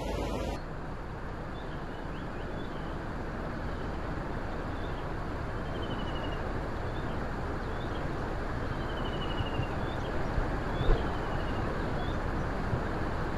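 Background music cuts off about half a second in, leaving a steady low outdoor rumble. Small birds chirp at intervals over it, with a few short rapid trills.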